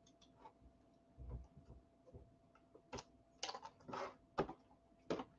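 Faint, scattered clicks and taps of a computer mouse being handled and clicked on a mouse pad, a few in the first half and a small cluster in the second half.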